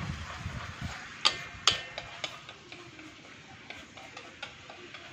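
Shrimp satay chili sauce being stir-fried in a metal wok, sizzling with a steady hiss while the stirring utensil clicks and scrapes against the pan. There are two sharp knocks a little over a second in, then lighter ticks.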